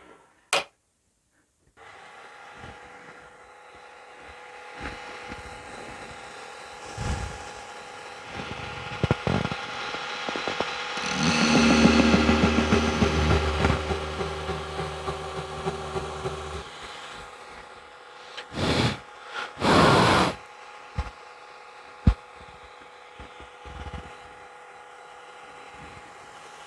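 Belt grinder running steadily, with a louder stretch of grinding for about five seconds near the middle as a knife is pressed against the belt. Two short, loud rushes of noise follow a little later.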